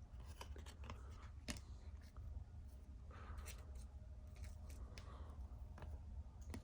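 Trading cards being handled and flipped through a pack: faint, scattered clicks and soft rustling over a low steady hum.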